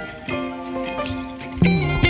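Background music: sustained instrumental chords, with bass and a louder passage coming in about one and a half seconds in.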